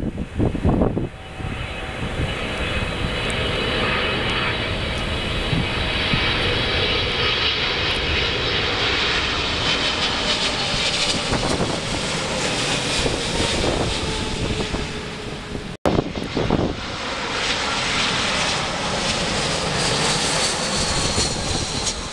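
Boeing 777 turbofan jet engines passing low overhead on landing approach: a steady roar with a high whine. After a brief cut about two-thirds of the way in, another jet airliner's engines on approach carry on the same roar and whine. There are a few wind thumps on the microphone at the very start.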